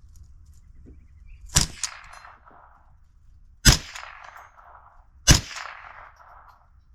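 Three gunshots about two seconds apart, each followed by an echo that dies away over about a second. The first shot sounds doubled.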